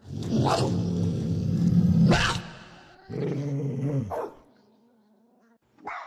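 Dog growling and barking: a long low growl that breaks into a sharp bark about two seconds in, a second growling bark about three seconds in, and a short bark near the end. Processed as 8D audio, panned around the listener.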